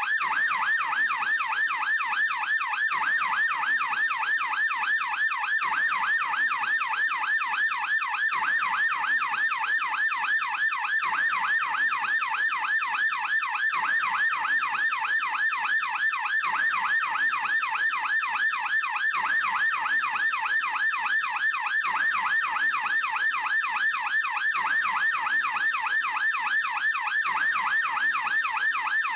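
Swiss police car siren in fast yelp mode: a rapid, continuous up-and-down wail repeating several times a second at a steady loudness.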